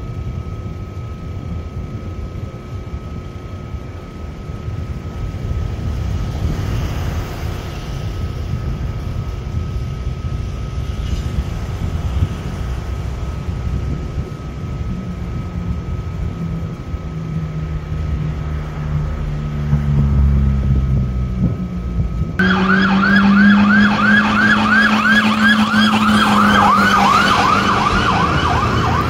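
Line 15 monorail train (Bombardier Innovia Monorail 300) rolling slowly past: a low rubber-tyre rumble with a faint steady whine. About 22 seconds in the sound changes abruptly to a siren wailing in a fast, repeating rise-and-fall yelp over a low hum.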